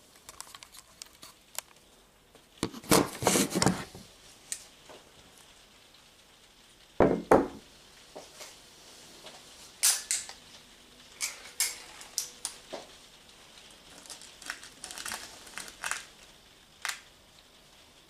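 Handling noise of objects on a wooden table: a quick run of clicking and rattling about three seconds in, a heavy knock about seven seconds in, then scattered sharp clicks.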